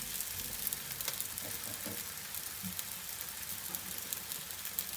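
Raw paratha dough, folded with desi ghee between its layers, sizzling steadily on a hot non-stick frying pan over a high flame, with fine crackles through the hiss.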